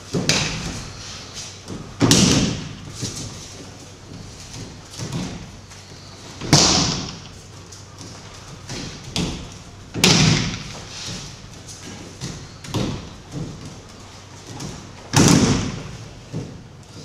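Aikido throws with partners taking breakfalls on the mat: four heavy thuds with a slap, one every four to five seconds, with softer knocks and footfalls between them.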